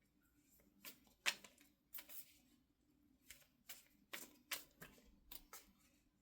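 Faint clicks and soft slaps of tarot cards being handled, about a dozen short irregular sounds spread across a few seconds.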